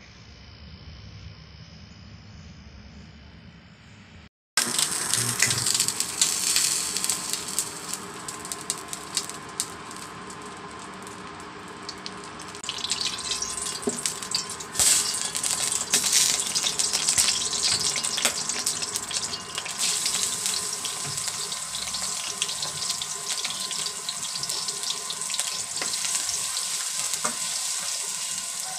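Hot cooking oil sizzling in a nonstick wok with many small pops, starting loudly after a brief silence about four seconds in; near the end, minced garlic is frying in the oil and being stirred with a wooden spatula.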